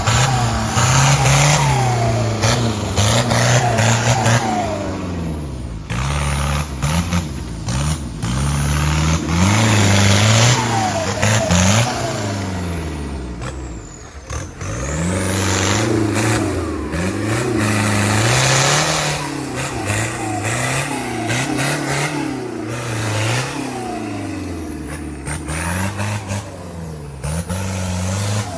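Off-road 4x4 race vehicle's engine revving hard and easing off again and again, its pitch climbing and dropping every second or two. A thin high whine rises and falls above it.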